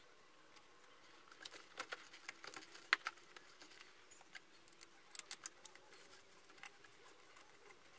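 Scattered light clicks and taps of hands refitting the corrugated air-intake hose onto the gas mixer and turning its hose clamp with a hex key, in two short clusters; a sharp click about three seconds in is the loudest.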